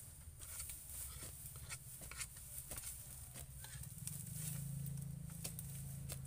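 Hand hoes chopping into soil, with irregular dull strikes from several hoes at once, as the ground is broken up into raised planting beds. A low steady hum runs underneath and swells about two-thirds of the way through.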